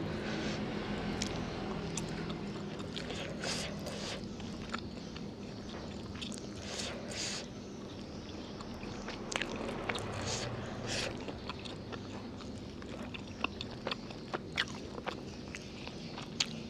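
Close-miked eating sounds: a person chewing and biting into wet fried noodles and chicken on the bone, with irregular sharp clicks of bites, a few louder ones in the second half.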